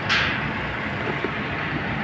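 Heavy dump truck's engine running steadily, with a short hiss just after the start.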